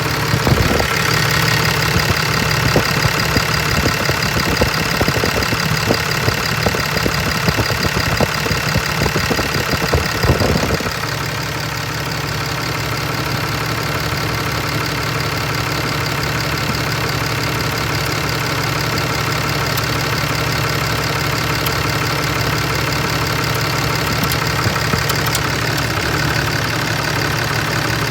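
2011 Ram 3500's 6.7-litre Cummins turbo-diesel inline-six idling, with a ticking noise whose cause the owner does not know. For the first eleven seconds irregular clicks and rumble sit over the engine; after that it runs steadier and a little quieter.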